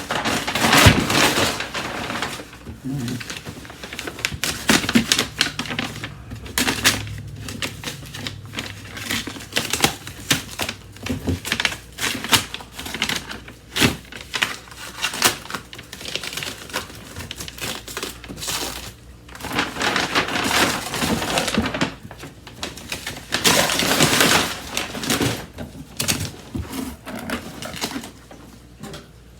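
Brown wrapping paper being torn and crumpled off a cardboard box: irregular rustling and crackling with many sharp clicks, louder in stretches near the start and again about two-thirds of the way through.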